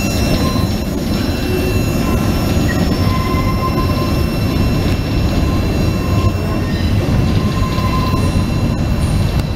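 CSX freight cars and a trailing caboose rolling past slowly on steel wheels: a steady low rumble with faint, thin wheel squeals over it.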